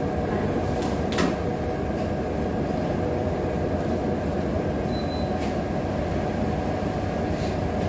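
Steady low rumbling background noise, with a couple of faint clicks about a second in.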